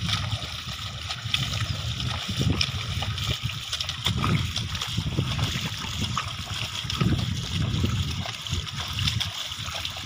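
Bullocks' hooves and a plough splashing and sloshing through the water and mud of a flooded field as the pair pull the plough, in uneven repeated surges.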